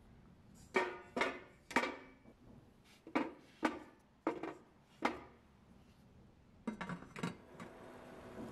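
Sweet potato slices set down one by one on a perforated stainless-steel steamer tray: seven sharp knocks, each with a brief metallic ring, then a quick run of lighter clicks about seven seconds in.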